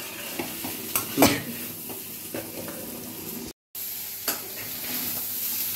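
Crumbled fish roe frying in oil in a metal kadai on low flame, sizzling steadily, while a spatula stirs and scrapes against the pan several times. The sound drops out for a moment just past halfway.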